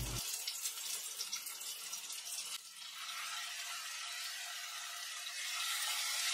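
Ridge gourd with poppy-seed paste sizzling softly and steadily in a pot on a gas stove.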